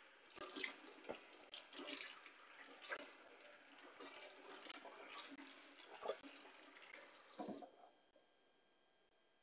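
Faint kitchen tap running into a stainless steel sink while hands work under it, with scattered knocks and clinks; the water shuts off near the end.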